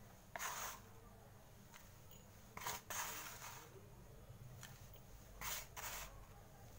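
Fingers scooping wet slate-pencil paste from a bowl and pressing it into small diya lamps: several short, soft wet scrapes and squishes a second or two apart, over a low steady hum.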